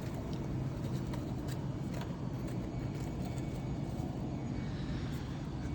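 Steady low background rumble with a few faint clicks, from baseball cards being handled and sorted.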